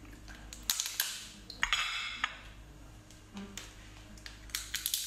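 Cooked lobster shell being cracked and peeled apart by hand: a run of sharp cracks and crackles, densest about two seconds in, with more cracks near the end.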